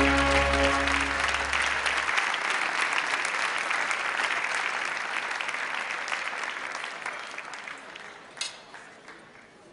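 Audience applauding, fading slowly away, with the last held notes of orchestral music under it in the first second or two. One sharp tap stands out near the end.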